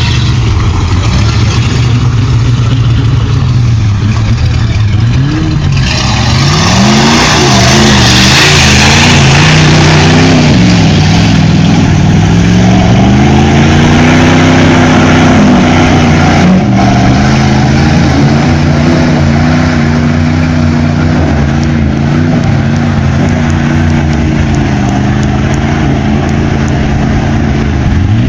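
Truck engine being revved hard, again and again, its pitch rising and falling. It is loud throughout and gets louder about six seconds in.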